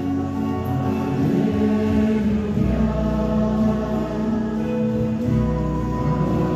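A choir singing a slow hymn in long held notes, over a deep sustained bass note that changes pitch twice.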